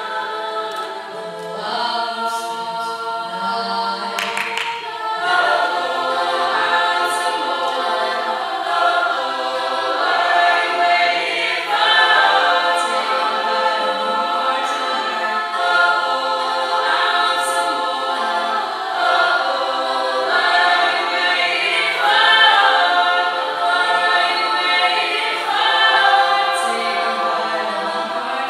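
Mixed-voice a cappella group singing a pop song, a lead voice carried over sung backing harmonies.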